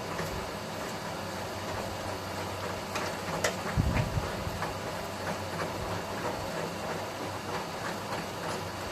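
A machine's electric motor running steadily, with scattered light metal clicks and a louder knock or two about three and a half to four seconds in.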